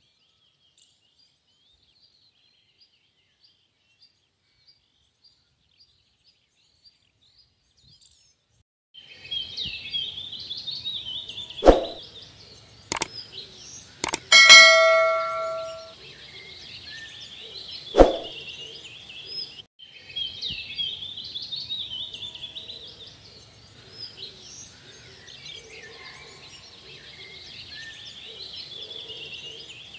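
Birds chirping and twittering in a dense chorus from about nine seconds in, after near silence with only faint chirps. Subscribe-button sound effects break in partway: sharp clicks, and a bell ding with a ringing tail about fourteen seconds in, which is the loudest sound.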